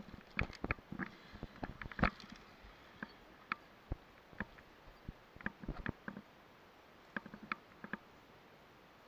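Irregular metal clicks and knocks from via ferrata gear: carabiners and lanyard rattling against the steel safety cable and rungs as the climber moves along. The loudest knocks come right at the start and about two seconds in. The clicking stops about a second before the end.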